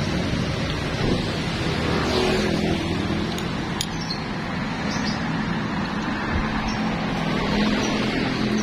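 Steady roadside traffic noise with vehicle engines running close by, and a few light clinks of a metal spoon against a ceramic bowl.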